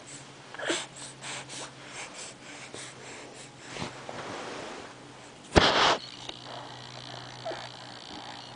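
Close breathing and snuffling with light rustles, and one short, loud burst of breath about five and a half seconds in.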